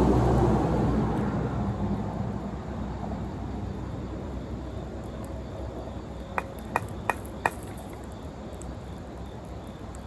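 A low rumble, like a passing engine, fades away over the first few seconds. Then come four short sharp clicks in quick succession, over a faint steady background.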